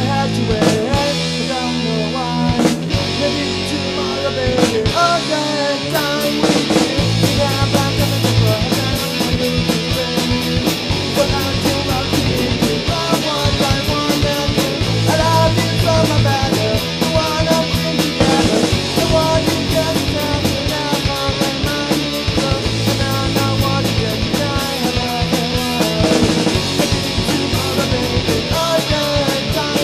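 Punk rock song played on electric guitars and a drum kit, with a steady beat.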